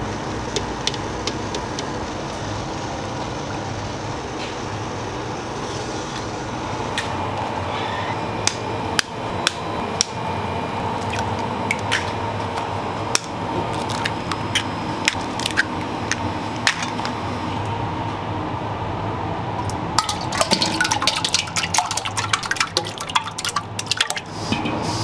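Kitchen work with steel bowls: a steady machine hum under scattered sharp clicks and taps, with a dense run of clicking and clatter about 20 seconds in as raw eggs are cracked and poured into a steel pot, with liquid splashing.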